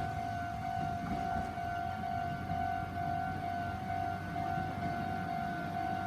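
Japanese railway level-crossing electronic warning bell ringing, a single repeated tone pulsing evenly, with a low rumble underneath.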